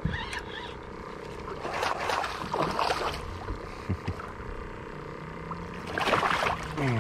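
A hooked bass thrashing and splashing at the surface beside a kayak, with splashes about two to three seconds in and a bigger splash about six seconds in as it is grabbed from the water.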